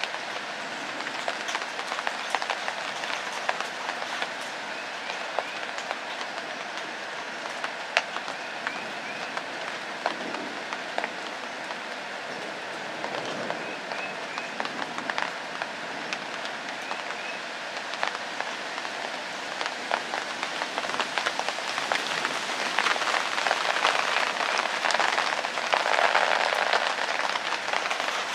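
Steady rain falling outdoors, with many separate drops ticking sharply through it, growing louder in the last few seconds.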